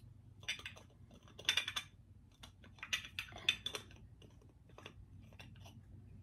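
Small cosmetic cream jar being handled, its lid clicking and scraping against the glass in a few short, faint clusters.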